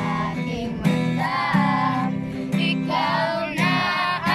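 Music: a song with a high voice singing a melody over a steady instrumental backing.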